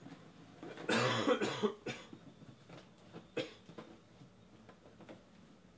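A person coughing: one strong cough about a second in, followed by a couple of shorter, fainter sounds.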